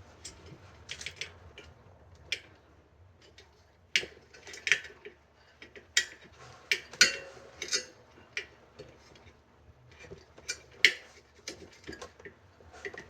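Irregular metallic clicks and clinks of a hand tool working the spoke nipples of a bicycle wheel as they are loosened.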